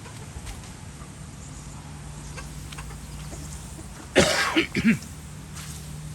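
A man coughs and then clears his throat, one loud burst about four seconds in, over a faint steady low hum.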